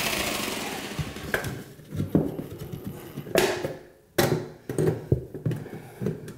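A power saw runs briefly and winds down about a second in. It is followed by irregular metallic clanks and crinkles as tin snips cut and bend the thin sheet-metal heating duct in the floor opening.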